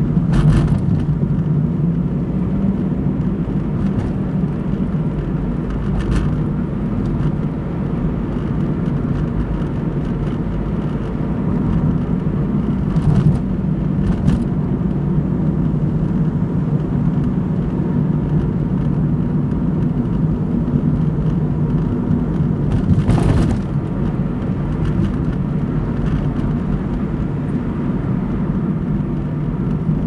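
Car driving along a road: a steady low drone of engine and tyre noise, with a few short knocks or rattles from bumps, the loudest about 23 seconds in.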